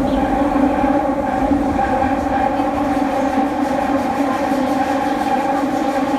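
Toei Oedo Line linear-motor subway train running: a loud, steady drone of several held tones over a constant rumble, the sound that is called horrible and annoying.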